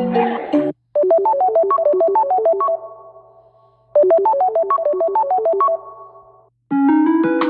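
Samsung phone ringtone: a quick run of short, bright synthesized notes played twice, each time fading out. Another ringtone ends just before it, and a fuller, different one begins near the end.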